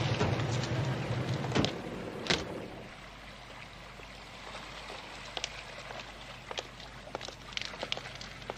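Soundtrack music fading out over the first two seconds or so, with a car door shutting. Then scattered, irregular footsteps of men walking across an open square.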